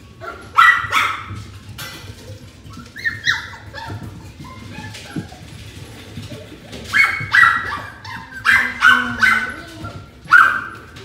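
Maltese puppies giving short, high-pitched yips and little barks while play-wrestling, in clusters: one about half a second in, a few around three seconds, and a run of them in the last four seconds.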